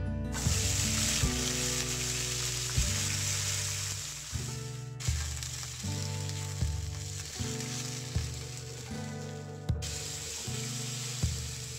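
Green beans sizzling in hot oil in a wok as they are dry-fried and stirred. The loud sizzling starts about half a second in as the beans go into the oil, and breaks off briefly twice. Background music with a soft, steady beat plays underneath.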